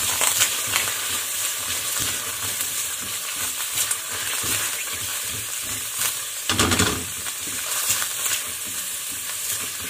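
Chopped garlic and onion sizzling in hot oil in a stainless steel frying pan, with a spatula stirring and scraping against the pan. The scraping is loudest and most busy about two thirds of the way through.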